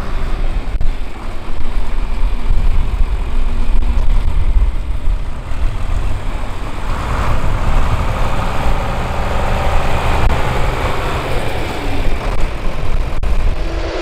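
Farm tractor engine running close by. It is a loud, continuous mechanical noise with a heavy low rumble that swells and eases.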